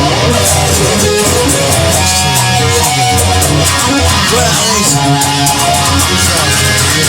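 Instrumental blues-rock passage: electric guitar playing over bass and a steady drum beat.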